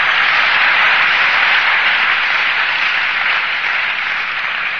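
Audience applauding, loud and steady, easing off slightly near the end.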